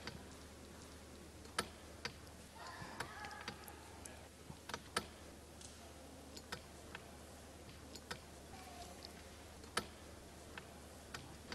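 Scattered sharp clicks at irregular intervals, about fifteen in all, over a steady low hum, with a short pitched rasp about three seconds in.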